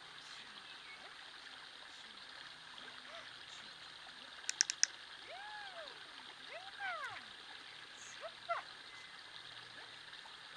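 Steady rushing of running water, with a quick run of four sharp clicks about four and a half seconds in. Several short, high calls rise and fall in pitch at intervals.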